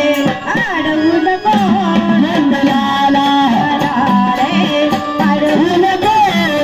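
Marathi gondhal devotional folk song: a singer's voice with drum and melodic instrumental accompaniment, wavering ornamented notes alternating with held ones.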